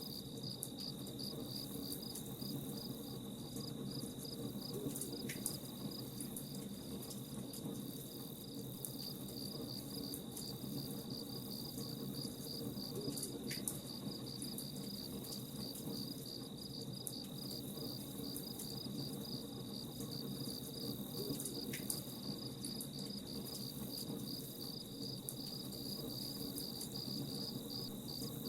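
Crickets chirping in a steady, evenly pulsing high trill over a low campfire hiss, with a few sharp crackles from the fire.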